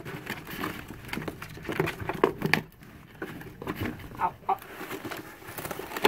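Hands rustling and knocking about inside a cardboard pet carrier, with a couple of short calls from the small pet birds inside about four seconds in.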